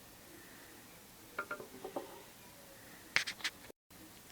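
Light clicks and taps of a screwdriver and hands on a plastic printer dock while its back screws are taken out: a few soft clicks about a second and a half in, then a sharper quick cluster of clicks around three seconds in.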